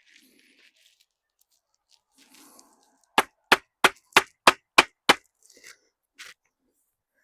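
Hammering: seven quick, sharp blows in a steady run, about three a second, a few seconds in.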